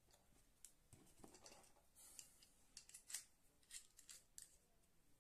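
Faint clicks and scrapes of a small screwdriver turning tiny screws into the aluminium plate of an LED bulb, as a string of short ticks.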